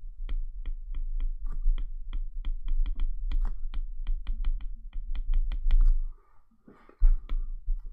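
Stylus tip tapping and clicking on an iPad's glass screen while handwriting, a quick run of sharp clicks at about four a second with a low rumble under them, stopping about six seconds in. A short low thump and a brief scrape follow near the end as the words are underlined.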